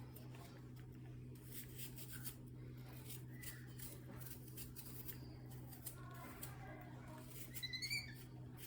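A baby monkey handling and nibbling sweet corn: faint small clicks and rustles over a steady low hum. Near the end comes a quick run of high squeaks, rising in pitch.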